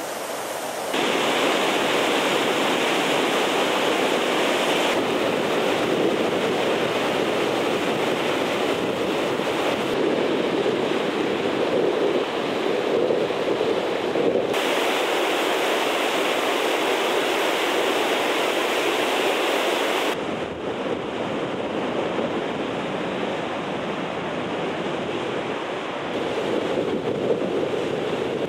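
Dynjandi waterfall rushing steadily, with some wind on the microphone. The noise shifts abruptly in level and tone several times.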